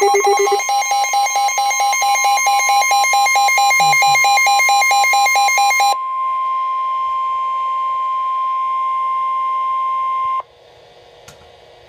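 A weather-alert radio's rapidly pulsing electronic alarm sounds over the steady 1050 Hz NOAA Weather Radio warning tone. The pulsing stops about six seconds in, and the steady tone carries on alone until it cuts off sharply about ten seconds in, leaving faint radio hiss. The tone signals that a warning broadcast is about to follow.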